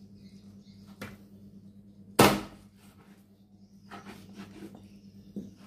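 Large kitchen knife chopping raw chicken on a cutting board: a lighter knock about a second in, then one hard chop about two seconds in, followed by a few softer cutting and scraping strokes near the end.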